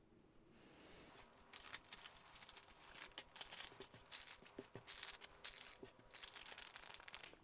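Faint, irregular crinkling and rustling of a thin clear plastic bag being handled as small diamond painting tools are put into it, starting about a second in.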